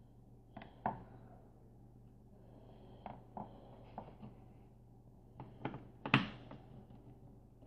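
Scattered light clicks and taps of small components and test leads being handled on an electronics workbench, the sharpest about six seconds in, over a faint steady low hum.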